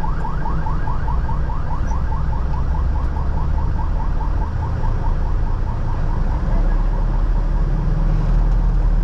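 An electronic siren whooping in quick rising sweeps, about five a second, fading out about five seconds in, over the steady low rumble of the vehicle's engine and road noise.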